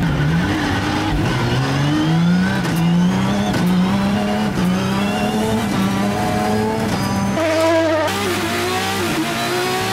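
Naturally aspirated Formula Renault 3.5 V6 rally-car engine revving hard, its pitch climbing and dropping back again and again as it shifts up through the paddle-shift gearbox, heard from inside the cabin.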